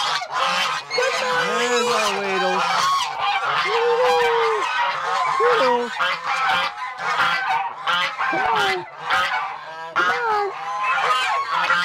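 A flock of domestic geese honking, many calls overlapping without a break.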